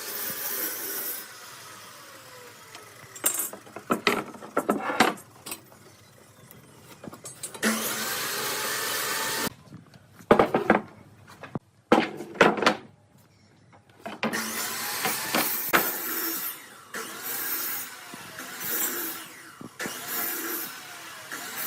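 Woodworking: a power tool running in several stretches, its pitch gliding up and down, broken by clusters of sharp knocks and clatter on wood.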